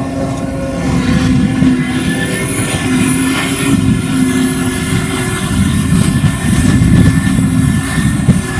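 John Deere 8600i self-propelled forage harvester running under load, chopping grass and blowing it into a forage wagon running alongside, with a steady high whine over the engine's drone and a heavier low rumble toward the end. A tractor pulling a forage wagon drives past in the first second or so.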